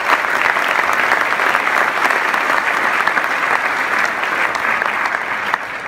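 Large audience applauding, a steady dense clapping that eases slightly near the end.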